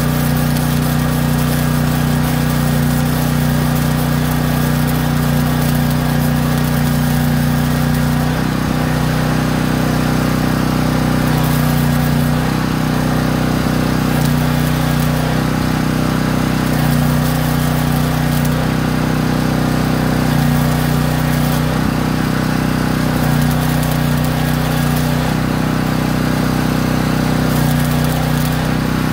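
Arc welding a steel caster swivel so it cannot turn: a steady crackling hiss of the arc over an engine running steadily, the low hum changing every two or three seconds as the welding starts and stops.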